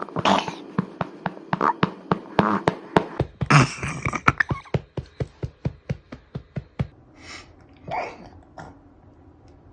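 Hand patting a baby's back to bring up a burp, in a steady run of light pats about four a second that stops about seven seconds in. Short vocal sounds from the baby come between the pats and once more near the end.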